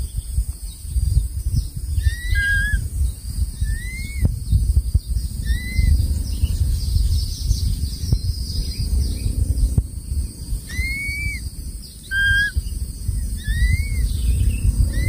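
Crested serpent eagle at the nest giving short, thin whistled notes, each rising then falling, repeated every second or two, over a constant low rumble.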